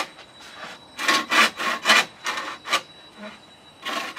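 Hand saw cutting through a thick green bamboo tube in quick back-and-forth strokes: a run of strokes from about a second in, a short pause, then the sawing starts again near the end.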